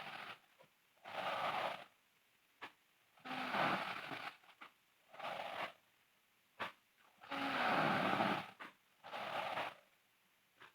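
A sleeping girl snoring in a slow, even rhythm: about every four seconds a longer, louder rasping snore is followed by a shorter, breathier one, with small clicks between breaths.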